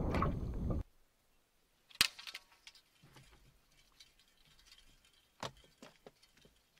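Wind buffeting the microphone, cut off abruptly under a second in, followed by a quiet stretch of scattered sharp clicks and light taps; the loudest click comes about two seconds in, another about five and a half seconds in.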